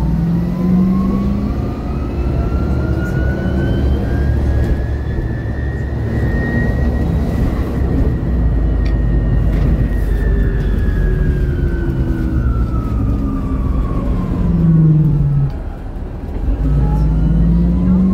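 MAN Lion's City NL253 Hybrid city bus heard from inside while driving. A thin whine from the hybrid electric drive rises in pitch for about the first seven seconds as the bus speeds up, then falls as it slows, and rises again near the end, over a steady low rumble. A deeper drone climbs with it at the start and again near the end.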